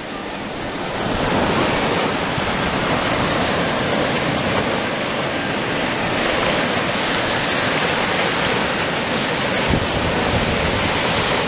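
Ocean surf washing up over the sand at the water's edge and waves breaking, a continuous rush of water that swells about a second in and then holds steady.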